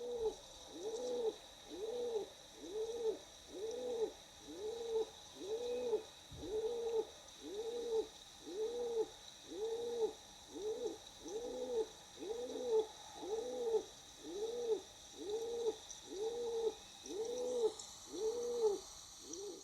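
Rock pigeon calling: a short, low, rising-then-falling coo repeated steadily about once a second, some eighteen times.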